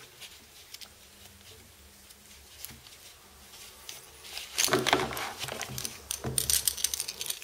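Plastic wrapping on a wristwatch being picked at and pulled off, crinkling with small clicks. It is faint for the first few seconds, and the crinkling gets busier from about halfway.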